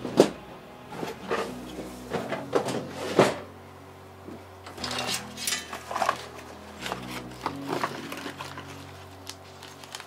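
Irregular clicks, knocks and clatter of computer case parts and hardware being handled on a desk, the sharpest knocks just after the start and about three seconds in, over quiet background music.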